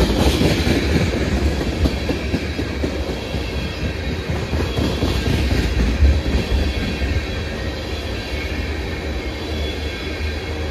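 Freight train rolling past, its wheels clacking over the rail joints in a steady rumble, with a faint high squeal from the wheels.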